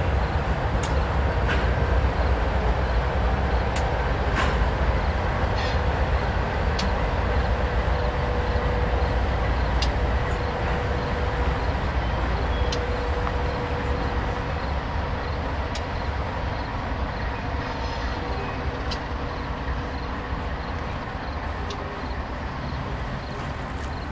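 Freight train passing: its lead diesel locomotives' engine rumble fades as they pull away, and the hopper cars roll by behind them. A steady tone runs through the middle, and sharp clicks come about every three seconds.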